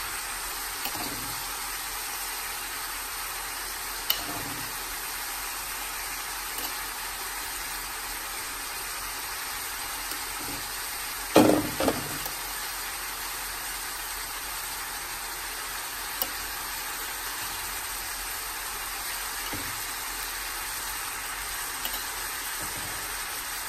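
Onions and raw turkey breast strips sizzling steadily in oil in a stainless steel frying pan. A few light clicks sound through it, and a louder knock comes about eleven seconds in.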